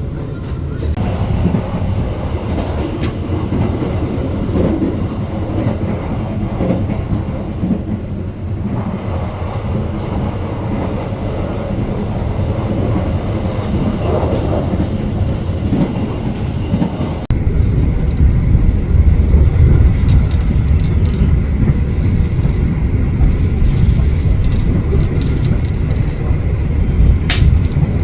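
KA Argo Bromo Anggrek express train running at speed, heard from inside a passenger coach: a steady rumble and rattle of the wheels on the rails. About 17 seconds in, the sound abruptly becomes louder and deeper.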